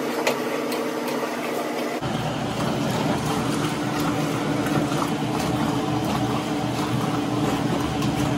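Maytag washing machine running on its test with water filling and swishing in the tub. After a change about two seconds in, a steady motor hum runs under the water, with no squeal, the squeal that had been its noise fault now repaired.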